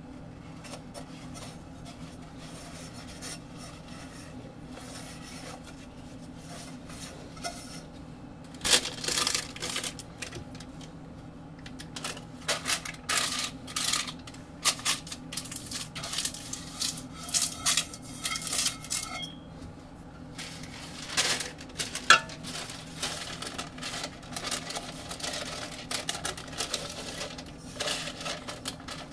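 Parchment paper crinkling and rustling in irregular bursts as it is pressed and fitted into a saucepan, starting several seconds in, with one sharper knock later on. A steady low hum runs underneath.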